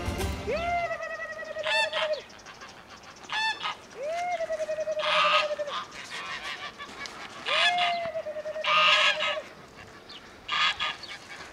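A flock of Kars geese calling: three long honks that each rise and then hold one pitch for over a second, mixed with several shorter, harsh honks.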